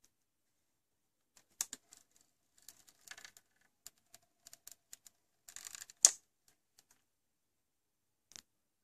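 Scattered light clicks and brief rustles of handling, irregular like typing, with the loudest sharp click about six seconds in and one small click near the end.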